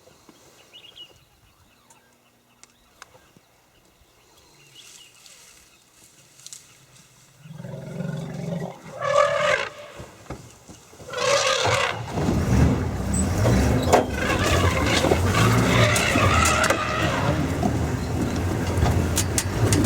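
A game-drive vehicle's engine starts up about halfway through and keeps running loudly as the vehicle moves. Before it, two short loud pitched cries are heard.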